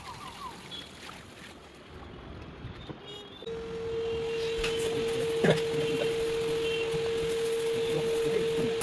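A small motor starts about a third of the way in and runs with a steady, even hum.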